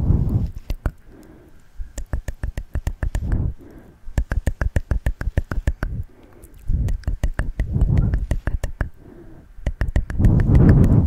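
Close-miked ASMR wet mouth sounds: rapid sharp tongue and lip clicks, in runs of many clicks a second, with soft low whooshes swelling up four times between them.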